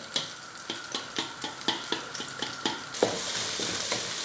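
Beaten eggs frying in oil in a steel karahi, with a metal spoon scraping and tapping the pan about three times a second. About three seconds in, this gives way to a louder, even sizzle as the scrambled eggs are stirred with a wooden spatula.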